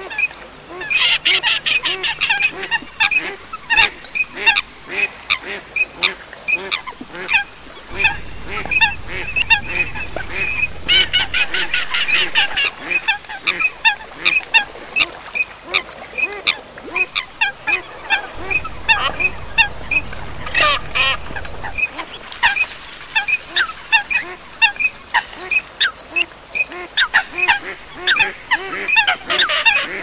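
A flock of common coots with teal and pintail ducks calling: many short, overlapping calls, several a second, with denser spells now and then.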